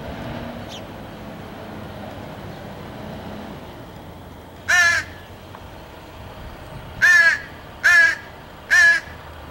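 Crow cawing: four short, harsh caws, one about halfway through and then three in quick succession near the end.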